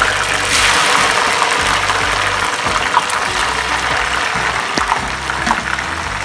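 Strips of raw jackfruit deep-frying in hot oil, a dense, loud sizzle that is strongest as the fresh batch goes into the pan and eases slowly as the oil bubbles on.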